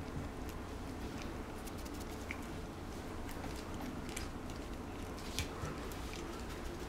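Puppy mouthing and nibbling at a person's fingers: a scatter of small, faint clicks and mouth sounds over a steady low hum.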